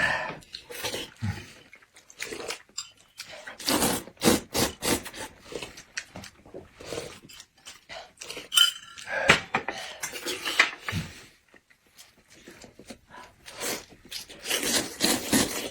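Close-miked eating sounds: noodles being slurped and chewed, with irregular clicks and clinks of utensils against dishes.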